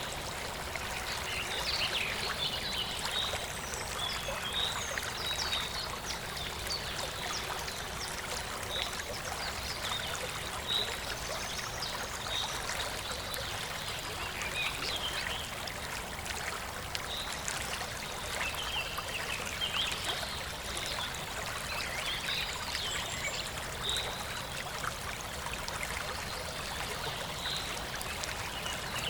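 Steady trickling of a running stream, with small birds chirping and singing in short calls throughout.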